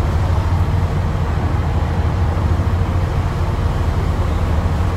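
Steady low rumble of a passenger ferry underway: a continuous engine drone mixed with wind blowing across the open-air economy deck.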